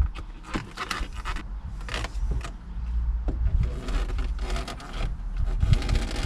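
Plastic interior door trim cover being pried off a truck door: irregular scraping and rubbing of plastic on plastic, with several sharp clicks as the retaining clips work loose.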